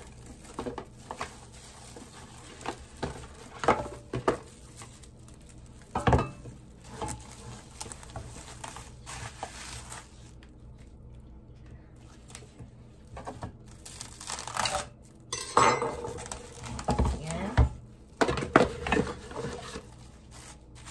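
Plastic wrap and a thin plastic bag crinkling as they are pulled over a metal loaf pan of bread dough, with scattered knocks and clatters of the pan against the counter.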